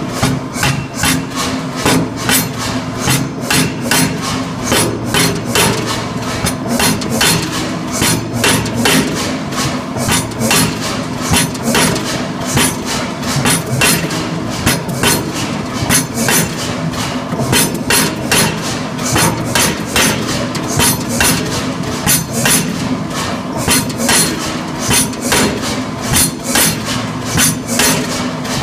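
Power hammer striking a red-hot steel bar on its dies in a steady run of blows, about two a second, to fuller and forge it, over a steady hum from the machine.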